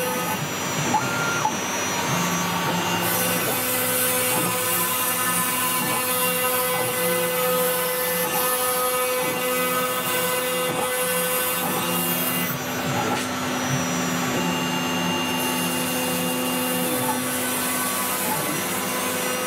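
CNC router spindle at about 20,000 rpm milling 2 mm FR4 glass-fibre board with a 2 mm diamond-cut carbide cutter, over the steady running of the dust-extraction vacuum. Steady machine tones shift in pitch every second or so as the cut moves along.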